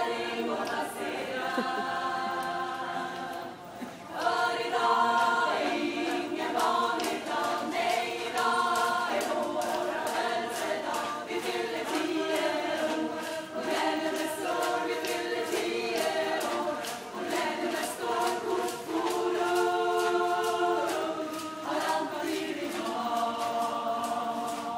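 A cappella choir singing in several parts, holding chords that change every second or two. From about eight seconds in, a steady beat of sharp clicks runs beneath the voices.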